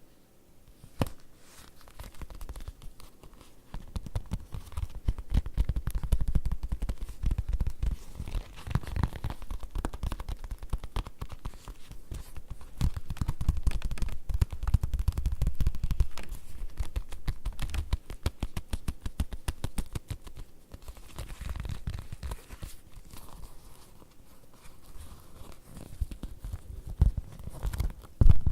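Rapid tapping on leather: a dense stream of soft, dull taps in runs that swell louder and ease off again.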